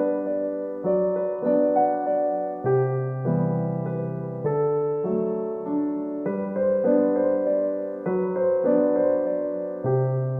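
Background music: solo piano, notes struck about twice a second and left to ring over changing bass notes.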